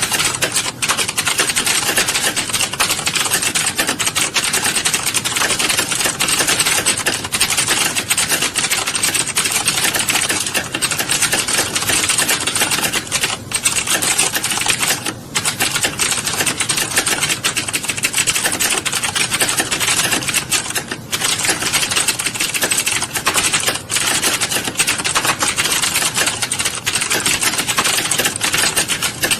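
Rapid, continuous typing on a keyboard: a dense stream of key clicks, broken by a few brief pauses.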